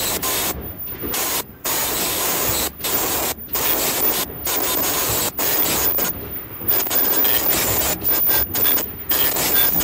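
Headband N95 mask-making machine running: a steady hiss and rubbing mechanical noise as fabric feeds through its rollers and stations, briefly dropping out several times.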